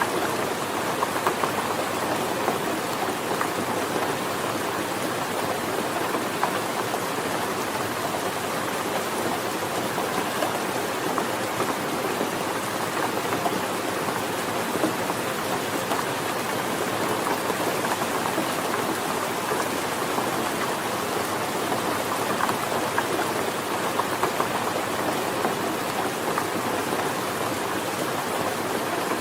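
Steady rain falling, an even hiss dotted with many small, sharp drop ticks.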